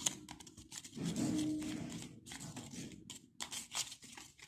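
A spoon stirring and scraping thick screen-printing ink around a plastic bowl, in irregular scrapes and clicks. A brief low-pitched sound about a second in.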